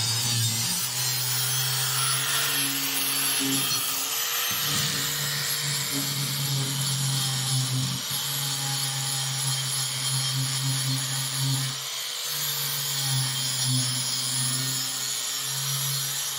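Angle grinder with a flap disc running against steel plates, smoothing plasma-cut edges. The steady motor tone sags briefly about three times as the disc is pressed in, under a constant grinding hiss.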